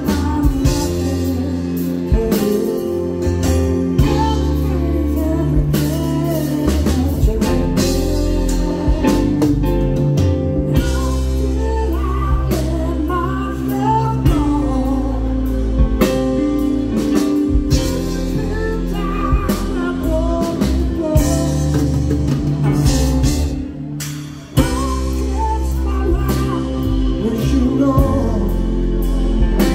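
Live rock band playing a ballad: a male voice sings over a keyboard, with sustained low notes and drum hits underneath. About 24 seconds in the music drops away briefly, then comes back in all at once.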